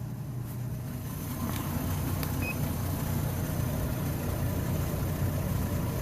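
Steady low rumble, with one short high beep from a handheld Autel TPMS sensor scan tool about two and a half seconds in.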